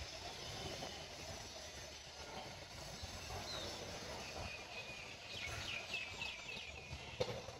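Garden ambience with a steady background of outdoor noise. About two-thirds of the way through comes a quick run of short, high chirps from a small animal, and a single sharp click sounds near the end.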